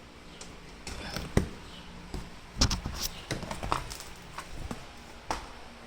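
Scattered light knocks and clicks of things being handled and set down, about half a dozen spread over several seconds, the sharpest a little over a second in.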